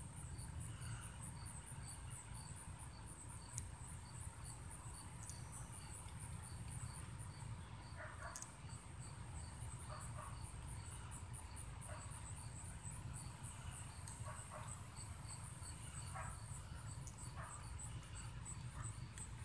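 Insect chirping in a steady high-pitched rhythm, about two or three chirps a second, over a low rumble, with a few faint rustles.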